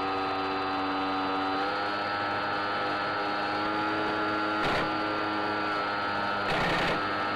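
Electric motor and propeller of an RC plane whining steadily at cruise, its pitch shifting slightly a little under two seconds in. A short crackle of noise cuts in about four and a half seconds in, and a longer one about six and a half seconds in.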